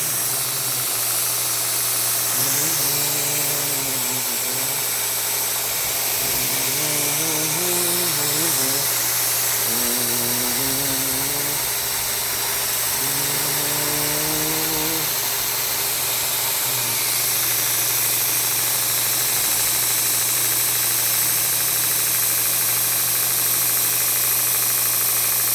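Homemade 72x2 belt grinder running free with nothing on the belt: a steady motor hum under a strong hiss from the belt.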